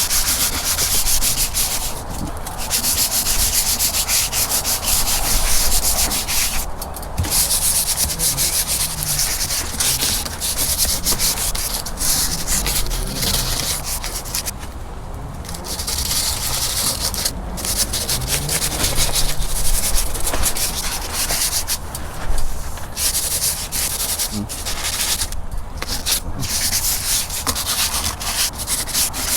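150-grit sandpaper rubbing over the old paint of a boat hull, a steady scratchy hiss broken by several short pauses.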